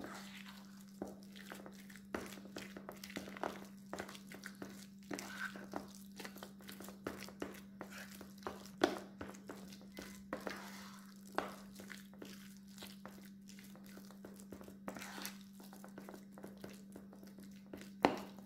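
Thick corn fritter batter of sweet corn kernels, flour and egg being stirred in a bowl: irregular wet squelching and scraping with clicks of the utensil against the bowl, a couple of them sharper. A steady low hum runs underneath.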